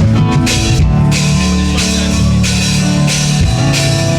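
Loud live-performance backing music with drum kit, bass and guitar playing between sung lines of a gospel song.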